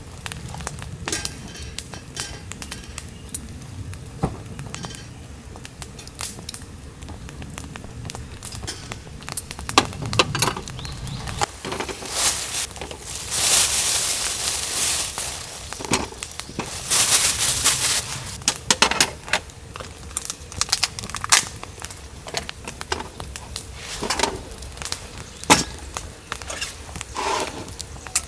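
Scattered clinks, knocks and crackles of camp cookware and utensils being handled, with two louder stretches of rushing noise, each a second or two long, around the middle.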